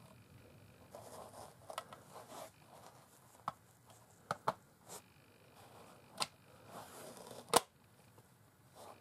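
Plastic body shell of a model Class 31 diesel locomotive being handled and pressed onto its chassis: soft rubbing and rustling with a series of small plastic clicks and knocks. The sharpest and loudest click comes about seven and a half seconds in.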